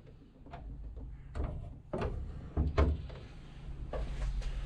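A few irregular knocks and clatters over a low steady hum.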